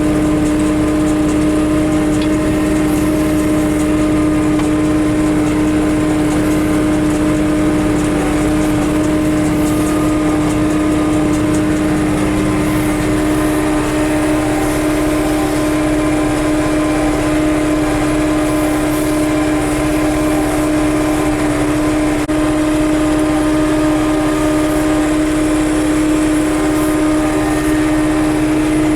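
John Deere 6300 tractor's diesel engine running at a steady speed with a strong constant hum, driving a John Deere 328 small square baler at work.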